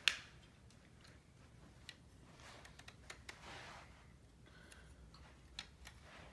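Faint clicks and rattles of LEGO plastic parts as the model is handled and folded, with one sharp click right at the start and a soft rustle around the middle.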